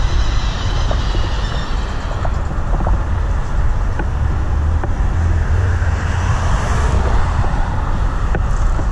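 Freight cars rolling slowly past on the rails, with occasional sharp clicks from the wheels over a steady low rumble. Faint high squeals come in the first two seconds.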